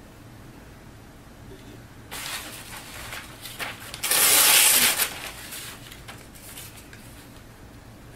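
A sheet of newspaper rustling and being torn by hand into strips, with short rustles from about two seconds in and the loudest, longest tear, about a second long, around four seconds in.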